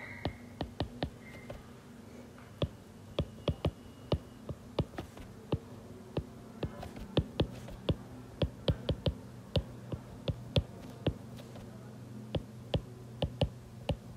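Stylus tapping and clicking on a writing tablet while handwriting: sharp irregular ticks, a few a second, over a faint steady hum.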